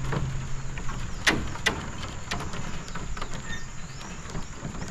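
Wooden planks of a cable suspension footbridge knocking and rattling underfoot as people walk across it, with scattered sharp knocks, the loudest about a second in.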